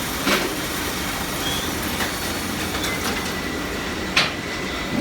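Steady mechanical noise from a fan-rotor workshop, broken by sharp metallic knocks: one just after the start and a louder one about four seconds in, with a few lighter clicks between.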